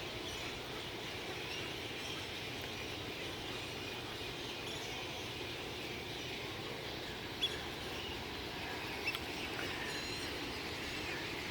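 Outdoor ambience of steady background noise with a few faint, scattered bird chirps.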